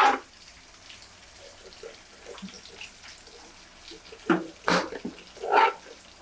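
A metal kitchen utensil knocking against cookware a handful of times, most of the knocks in the last two seconds, over a faint steady hiss, while fried chicken 65 is handled.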